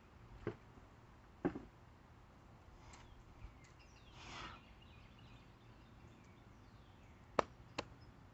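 A few faint, sharp knocks and taps from work on a wooden fence post being set: two in the first couple of seconds and two close together near the end, with a short scraping swish about halfway.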